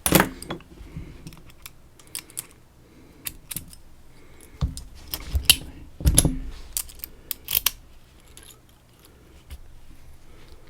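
Irregular small metallic clicks and clinks of a padlock and small tools being handled, the loudest at the start and in a cluster between about five and eight seconds in.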